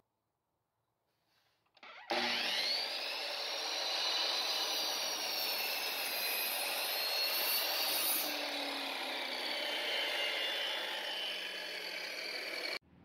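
Delta ShopMaster miter saw cutting through a wooden board: the saw starts abruptly about two seconds in and runs steadily with a high motor whine that wavers in pitch as the blade works through the wood, then cuts off abruptly near the end.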